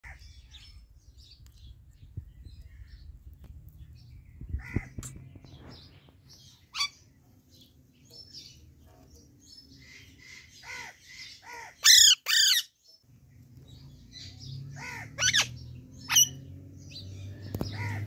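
Alexandrine and Indian ringneck parakeets calling: scattered short chirps, then two loud harsh squawks just past the middle and a few more squawks toward the end.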